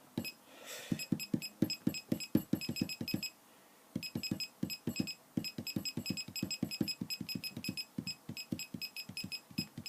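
A.G.S laser projection keyboard sounding its electronic key-click tone with every keystroke as a sentence is typed quickly on the projected keys. The clicks come about five or six a second, with a short break about a third of the way in.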